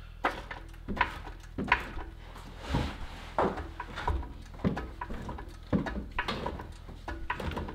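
Hydraulic floor jack being pumped to raise the engine, giving a string of short clicks and knocks a little more than once a second.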